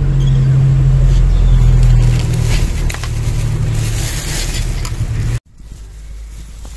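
A motor vehicle's engine running close by: a loud, steady low rumble that cuts off suddenly about five seconds in, leaving only faint sounds.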